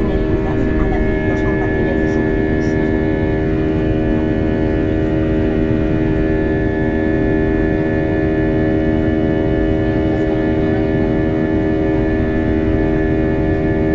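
Airliner cabin during the climb: a steady engine drone, with a hum of several held tones over a constant rush of air noise.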